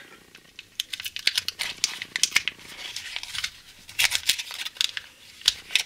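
Foil wrapper of a roll of 120 film being torn open and crinkled by hand: a run of irregular crackles and rustles.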